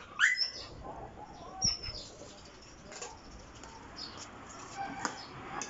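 Bird chirps: a sharp sweeping chirp about a quarter of a second in and a shorter high chirp near two seconds, with a few faint clicks in between.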